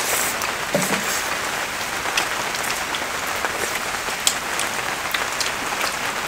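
Steady rain falling, an even hiss with scattered sharp taps of single drops.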